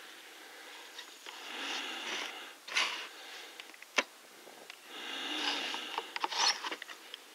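Close, breathy rustling noises in two spells, with scattered sharp clicks, the sharpest about four seconds in. These are sounds made right at the microphone, not in the scene far off.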